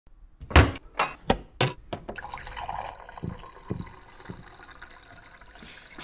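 Kitchen handling sounds: a quick run of sharp knocks and clinks, then a brief watery rush and a few soft thuds. Near the end comes a sharp breath in, the build-up to a sneeze.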